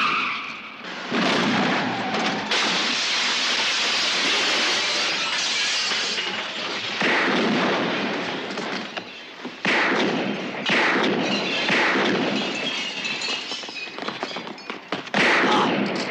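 A car crashing through a shop's plate-glass front: a long crash of shattering glass and breaking debris, followed by several more sudden loud crashes.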